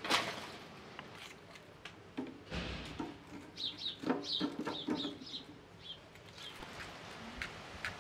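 Chickens clucking in a quick run of short calls with higher chirps among them, from about two seconds in until about five and a half. A single sharp knock right at the start is the loudest sound.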